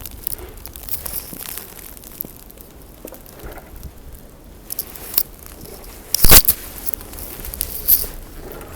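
Footsteps crunching through snow, with scattered crackles, and a loud knock about six seconds in.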